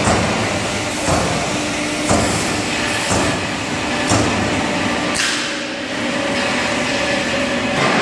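Euromac MTX Plus CNC turret punch press punching sheet metal: a dense clatter of working noise with a sharper punch strike about once a second through the first five seconds, then a steadier machine noise.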